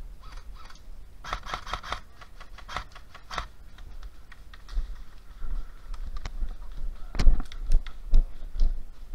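Irregular sharp clicks and knocks, a short cluster about a second in and a louder run of about six near the end.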